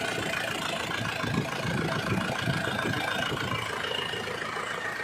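Isuzu Panther diesel engine idling steadily with an even, rapid clatter, being checked for blow-by.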